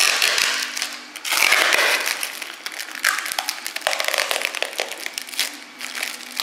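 Thin MonoKote plastic film being peeled up off a heated glass print bed and crinkling in the hand: a crackling rustle full of small snaps, with the film coming away easily from the warmed bed.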